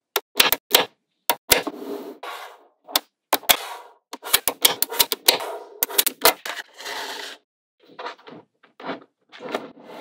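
Small magnetic balls snapping together and clattering against each other: irregular sharp clicks, some in quick runs, with brief rattling in between. The clicks are softer near the end.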